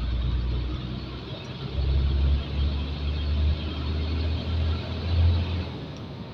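Hino truck's diesel engine and drivetrain heard from inside the cab while driving: a deep, uneven drone that swells a couple of times and eases off near the end.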